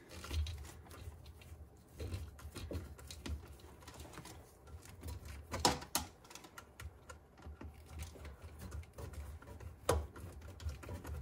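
A screwdriver turning the screw of a hose clamp on a dishwasher drain hose at the garbage disposal inlet to loosen it: a run of small, irregular clicks and ticks, with a sharper click near six seconds in and another near ten.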